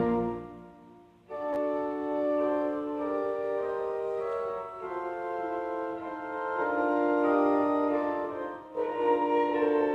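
Organ music: a loud full chord with deep pedal bass stops and rings away over about a second. The organ then comes back softly with sustained chords, without the deep bass, moving slowly from chord to chord.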